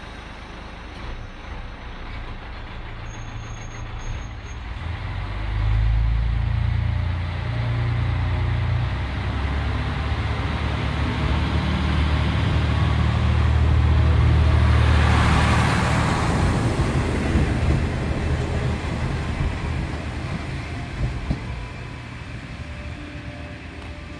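Kashima Rinkai Railway diesel railcar pulling out of a station. Its diesel engine opens up with a deep throb about five seconds in and grows louder as the car passes close by about fifteen seconds in, then fades as it draws away.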